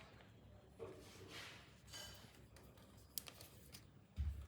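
Faint handling noise: scattered small clicks and short rustles, with a louder low thump near the end.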